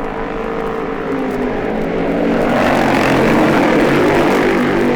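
A group of racing motorcycles, Nortons among them, running through a corner one after another, their engines getting louder as they come past, loudest about three to four seconds in.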